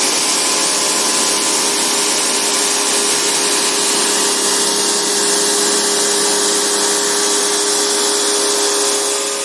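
Electric pressure washer running steadily, its motor and pump humming under the high hiss of the water jet spraying the evaporator coil of a split air conditioner's indoor unit.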